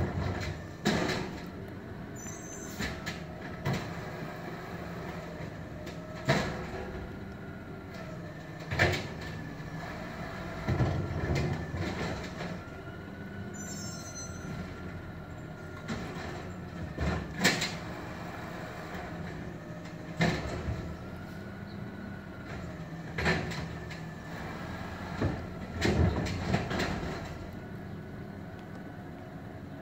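Automated side-loader garbage truck working the street, heard through window glass: its diesel engine runs steadily under a whine that rises and falls. Sharp bangs and clanks come every few seconds as its arm handles the trash carts.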